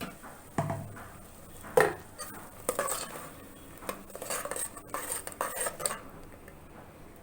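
A spoon stirring and scraping thick tomato-onion masala in a metal pressure cooker, with a few separate knocks and scrapes against the pot as the paste fries.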